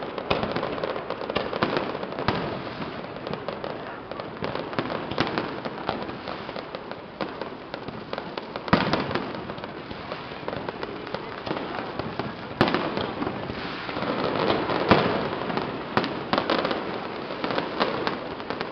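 Fireworks going off without pause: a dense crackle of many small bursts, with louder bangs now and then, the biggest about halfway through.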